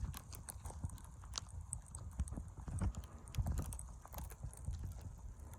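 Storm wind rumbling on the microphone, with irregular crunching clicks and soft thumps scattered through it.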